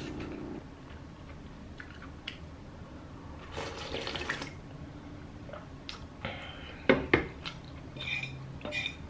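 Soup broth slurped straight from a ceramic bowl, then the bowl set down on the table with a sharp knock about seven seconds in, and a metal spoon clinking against it near the end.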